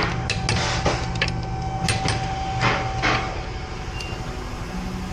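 Scattered clicks, knocks and clinks of hand work in a repair shop over a steady low hum. A thin steady tone runs underneath and stops about three seconds in.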